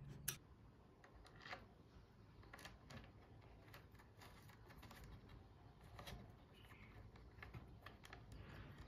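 Faint, irregular clicks and light taps of a small metal screwdriver and screws against the metal casing of a model turbojet engine kit during assembly. The sharpest click comes about a third of a second in.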